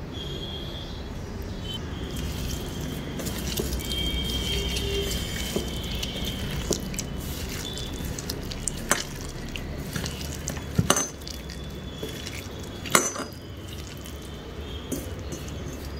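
A hand mixing and squeezing raw okra, sliced onion and green chillies coated in oil in a stainless steel bowl: wet rustling and squishing, with scattered sharp clicks and knocks against the steel, the two loudest about two seconds apart in the second half.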